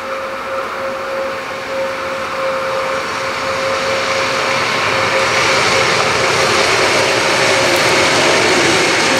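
Soviet-built WFL class 231 'Ludmilla' diesel locomotive with its 16-cylinder Kolomna engine, running light and approaching, its engine noise growing steadily louder. A steady whine sounds over the engine until near the end.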